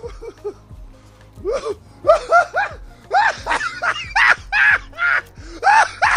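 Dubbed-in laughter: a person laughing in short high-pitched bursts, quickening and coming closer together after the first second and a half, over steady background music.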